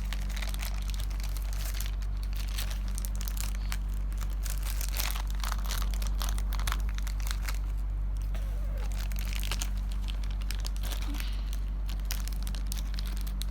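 Plastic packaging crinkling and crackling in the hands as toy parts are unwrapped, over a steady low electrical hum.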